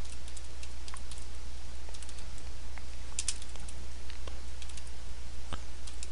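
Computer keyboard being typed on, single key clicks at uneven spacing, over a steady low electrical hum.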